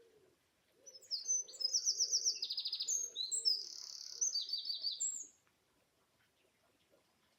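A songbird singing a loud, fast song of high, rapidly repeated trills and varied phrases, starting about a second in and lasting about four seconds. Pigeons coo faintly underneath.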